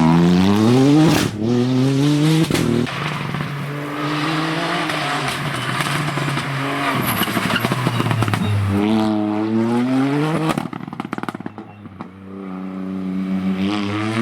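Rally car engine revving hard and accelerating through the gears, its note climbing and breaking off at quick upshifts in the first few seconds. Around ten seconds in the revs drop and the sound fades, then the engine climbs again near the end.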